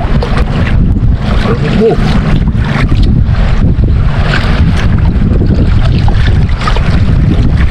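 Strong wind buffeting the microphone over choppy sea water around a small wooden outrigger boat, a loud, steady rumbling noise.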